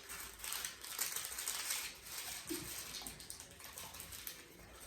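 Crackling and clicking of plastic food packaging being handled, fading out near the end.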